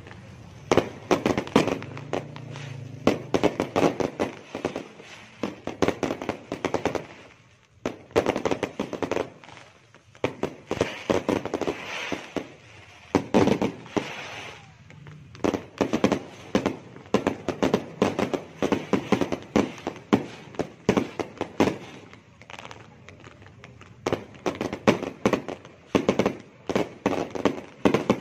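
Fireworks and firecrackers going off in dense strings of rapid bangs and crackles, with brief lulls about eight and ten seconds in.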